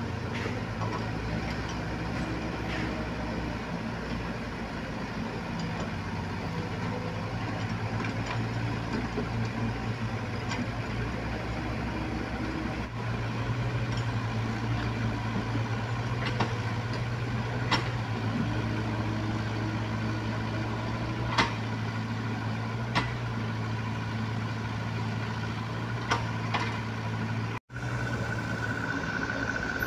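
Diesel engines of mini excavators and a dump truck running steadily, a low drone, with a few sharp knocks in the second half. The sound cuts out for an instant near the end.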